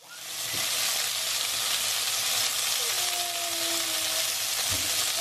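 Flour-dredged beef cubes sizzling steadily in hot olive oil as they sear, with a spatula stirring and turning them.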